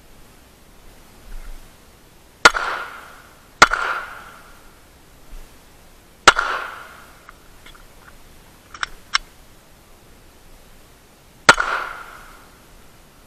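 Four handgun shots. The first two come about a second apart, then single shots follow after pauses of roughly three and five seconds, each with a short ringing tail. Two quick, smaller clicks fall between the third and fourth shots.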